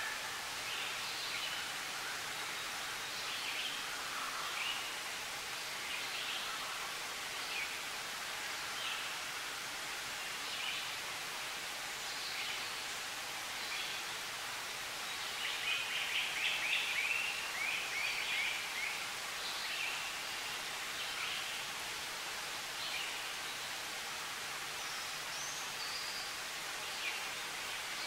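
Spring woodland ambience: a steady hiss with scattered short songbird chirps, and one louder quick run of rapid notes a little past halfway through.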